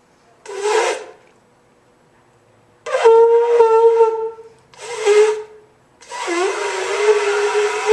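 A flat-shaped shofar blown in four tries: short, breathy, airy blasts that only partly settle into a low steady note, the last and longest still sounding at the end. The player struggles to get a clean sound because, she says, the mouthpiece hole is a little too big to seal easily with buzzing lips.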